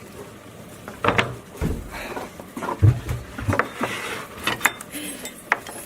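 Scattered knocks, bumps and light clinks of tableware being handled, with a few dull thumps and some sharper clicks.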